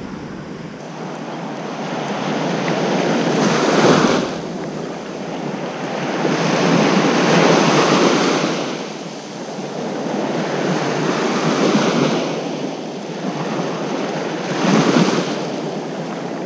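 Small waves breaking on a sandy beach. The surf swells and washes up the sand, then fades, about every three to four seconds.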